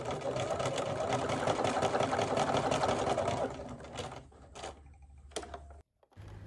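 Electric sewing machine running at a steady speed, its needle stitching a zigzag through stretch fabric, for about three and a half seconds before it stops; a few soft clicks follow.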